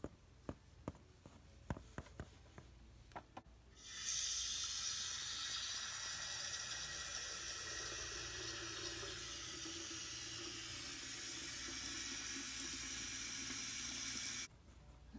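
A few light clicks of plastic toy pieces being handled, then water running from a tap into a bowl for about ten seconds as it fills, stopping abruptly near the end.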